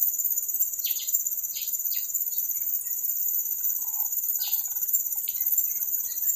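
Steady high-pitched drone of insects in riverside forest, with a few short bird chirps scattered through it.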